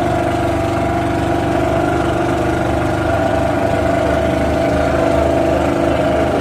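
A passenger boat's engine running steadily at an even pitch, with a constant hum and some noise from the water.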